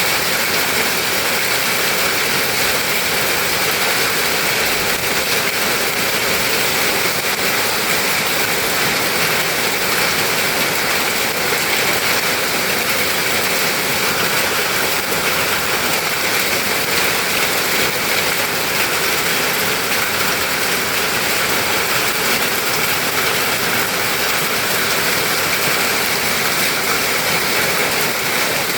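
Heavy storm rain pouring down in a steady, unbroken rush.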